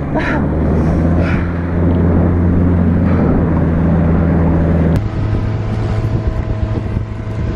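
Speedboat running under way towing a tube: a steady low engine drone mixed with rushing water and wind buffeting the microphone. The sound changes abruptly about five seconds in.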